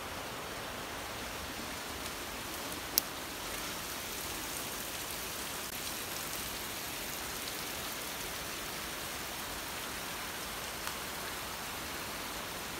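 Steady rushing hiss, like running water or rain, with one sharp click about three seconds in.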